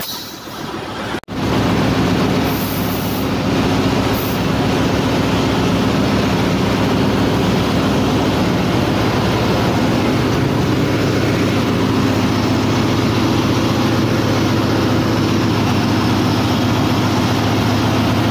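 Ship's engine-room machinery running with a loud, steady drone and hum. The sound briefly cuts out about a second in.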